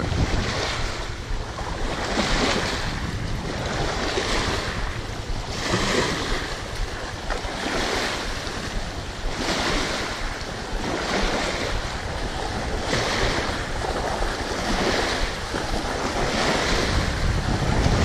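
Strong wind buffeting the microphone with a steady low rumble, over small river waves splashing against a rocky shore; the rush swells about every two seconds.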